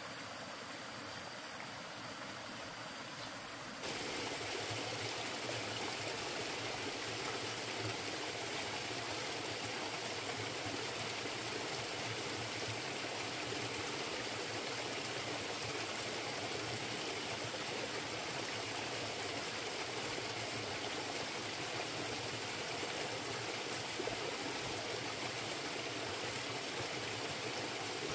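Steady rushing of running water, like a stream, getting louder about four seconds in and then holding even.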